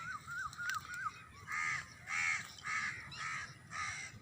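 Bird calls: a quick run of short chirping notes in the first second, then five harsh, evenly spaced calls, about two a second.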